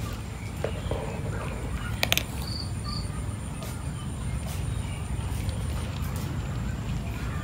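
Cat crunching dry kibble: scattered short crunches over a steady low rumble, the loudest a sharp double crack about two seconds in. Two short high chirps follow at about two and a half and three seconds.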